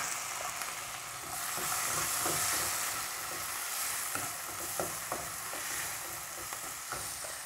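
Chopped tomatoes and onions sizzling in butter in a frying pan while being stirred with a spoon, with a few light taps and scrapes of the spoon on the pan. The sizzle swells about a second and a half in, then eases back a couple of seconds later.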